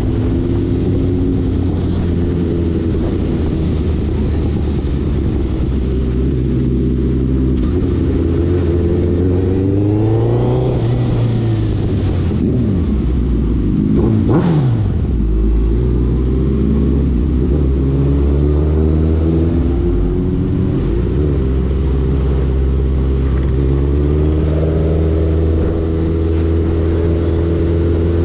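Suzuki Hayabusa Gen3's 1340 cc inline-four running through an Ixil aftermarket exhaust while riding, the engine note rising and falling as the throttle is opened and eased off, with a quick sweep down in pitch about halfway through.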